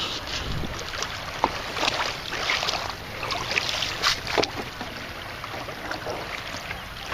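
Shallow water sloshing and splashing, with scattered sharp clicks and rattles that are busiest over the first four seconds and then thin out.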